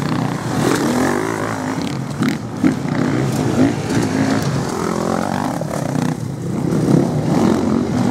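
Several enduro dirt-bike engines revving up and down under load as the bikes climb a steep dirt hill, their pitch rising and falling continually and overlapping.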